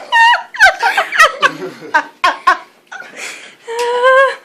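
High-pitched laughter in quick bursts that fade from about two seconds in, then one held high vocal note near the end.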